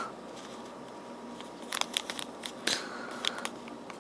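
Packets of small electronic parts being handled, giving scattered crinkles and sharp clicks, most of them about two seconds in and again near three seconds.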